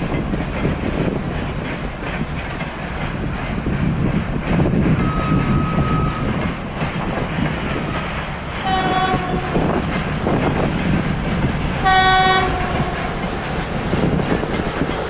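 Freight train rushing past close by, its wheels and cars making a continuous heavy rumble and clatter. A brief thin high tone sounds about five seconds in. Two short horn blasts come about three seconds apart, the second louder and dropping slightly in pitch as it ends.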